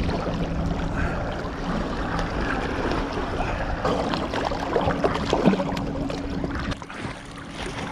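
Sea water lapping and sloshing close against a camera at the surface, with a few irregular paddle splashes from a stand-up paddleboard, over a faint steady low hum.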